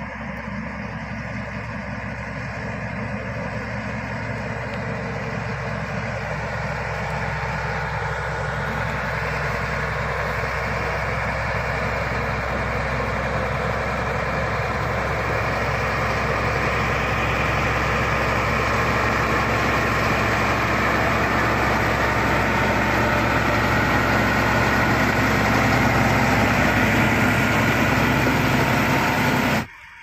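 Shantui crawler bulldozer's diesel engine running under load as it pushes a blade full of soil, growing steadily louder as the machine comes closer. The sound cuts off suddenly near the end.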